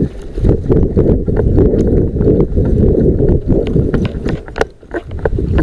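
Running footsteps on concrete and rubble, a quick uneven series of knocks over a dense low rumble of handling and wind on the body-worn microphone.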